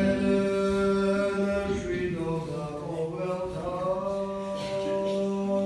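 Unaccompanied chanting in the style of Georgian Orthodox liturgy. Long sustained notes over a steady held low tone, with the melody stepping and bending above it.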